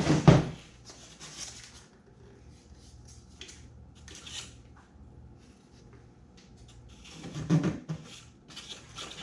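Hand-work on foam kayak parts: a loud knock right at the start and another about seven and a half seconds in, with light rubbing and scraping in between as a foam piece is fitted and spiked in place.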